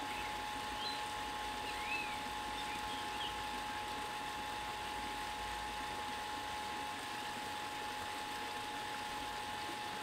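Shallow forest stream running steadily, with a thin steady tone underneath. A few short bird calls come in the first few seconds, one a brief rising-and-falling whistle about two seconds in.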